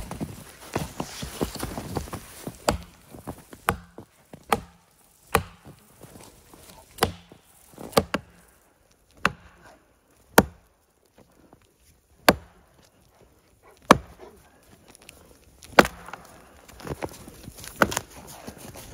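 Axe chopping into a fallen tree trunk: about a dozen sharp blows, one every second or two, with lighter cracking and rustling of branches in the first few seconds.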